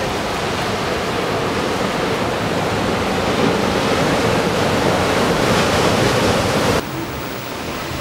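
Ocean surf: big waves breaking and washing against a concrete seawall, a steady loud rush of white water that builds over several seconds. Near the end it cuts suddenly to a quieter wash of small waves in shallow water.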